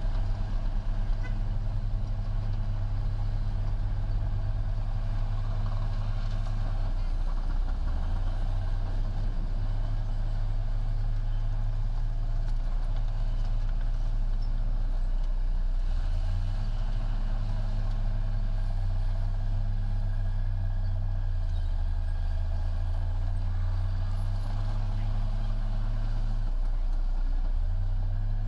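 Heavy diesel engine of earthmoving machinery running steadily at a deep pitch, its note dipping and coming back up about three times.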